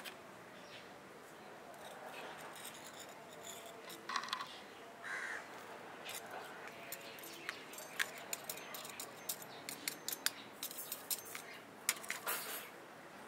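Small metal hand trowel scraping and tapping soil around a succulent in a ceramic pot, then digging into gravel in a plastic tub: a run of small clicks, scrapes and gravel rattles that gets busier in the second half.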